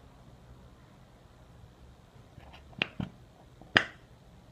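Sharp clicks and taps from handling a small bottle of oil while trying to get it to pour: quiet for about two seconds, then four or five short clicks, the loudest near the end.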